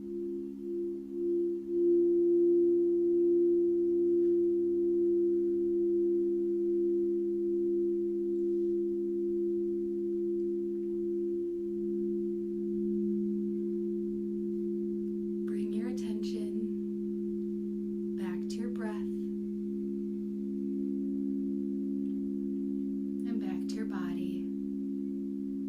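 Singing bowls sounding together in sustained low, steady tones, pulsing at first and swelling about two seconds in. Three brief rustling sounds come in the second half.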